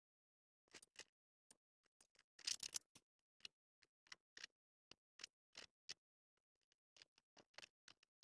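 Faint, irregular scratching strokes of a sketching tool drawn across stretched canvas, a quick run of strokes about two and a half seconds in, then scattered single strokes with short pauses: rough sketching on the canvas.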